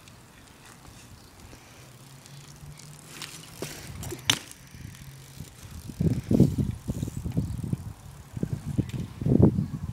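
BMX bike rolling and hopping on asphalt, with one sharp clack about four seconds in. From about six seconds, loud irregular low rumbles buffet the microphone.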